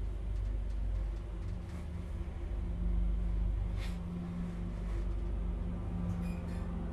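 KONE passenger elevator car riding down one floor: a steady low hum and rumble of the moving car, with a steady low drive tone that comes in about a second in and grows stronger partway through, and a faint click near the middle.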